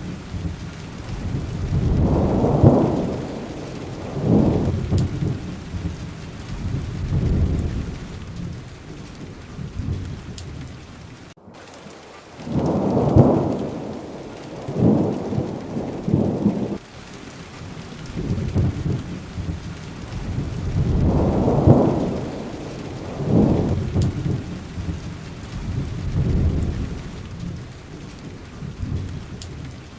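Steady rain falling, with rolling thunder: three long rumbling peals, each swelling and dying away over several seconds. The sound cuts out for an instant a little after eleven seconds in.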